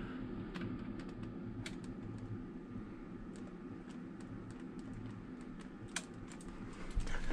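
Quiet room tone: a low steady hum with a few faint, scattered clicks.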